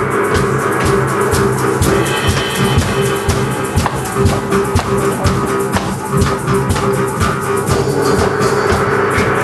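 Several jaw harps played together live: a steady twanging drone with shifting overtones and fast, rhythmic plucks, with percussion underneath.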